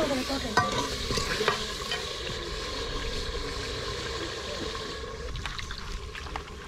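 Gravy bubbling in an aluminium pot over a wood fire, with a steel ladle stirring and clinking against the pot twice in the first two seconds. About five seconds in the bubbling gives way to a few light clicks.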